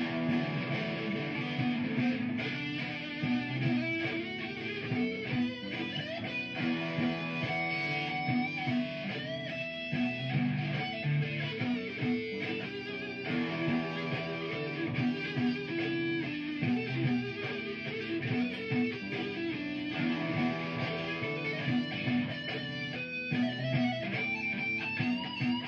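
Electric guitar played through a pedalboard and amplifier: an improvised solo line of held and bending notes over a repeating looped guitar backing.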